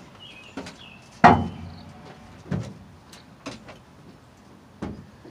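Several irregular knocks and thumps, the loudest a little over a second in, with weaker ones about every second after.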